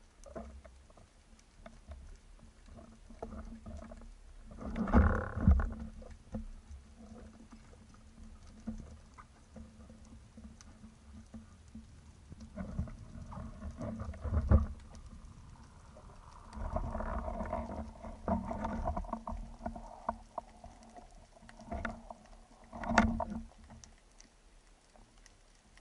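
Muffled underwater sound picked up through an action camera's waterproof housing: water movement over a steady low hum, with several loud knocks and thumps, the loudest about five seconds in and near the end.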